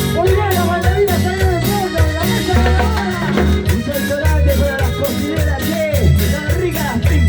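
Latin American dance music with a steady beat, a heavy bass line and a bending melody line over it.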